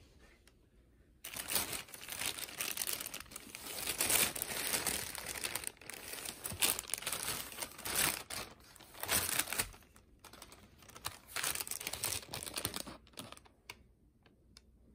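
Thin plastic shopping bag crinkling and rustling in irregular bursts as hands rummage in it and draw out a book. It starts about a second in and dies away near the end, leaving a few faint clicks.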